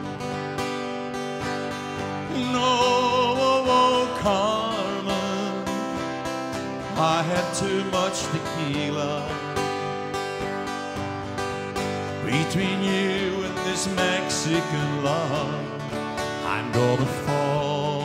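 Live country band playing: acoustic and electric guitars, bass and drums, with a wavering lead melody over them.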